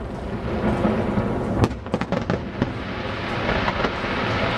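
Aerial fireworks shells bursting: a continuous crackle and rumble of explosions, with a cluster of sharp bangs about a second and a half to two and a half seconds in.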